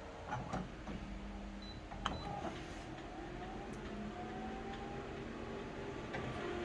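Photocopier starting a copy: a click about two seconds in, then its motor whirring with tones that glide slowly upward and grow gradually louder.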